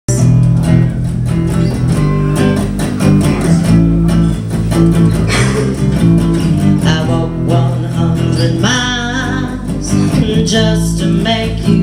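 Live acoustic-band intro: an acoustic bass guitar playing a steady, prominent bass line under a strummed guitar, with a wavering melody line coming in near the end.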